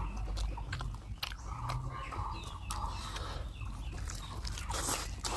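A person chewing and biting into pork curry close to the microphone, a run of short mouth clicks and smacks.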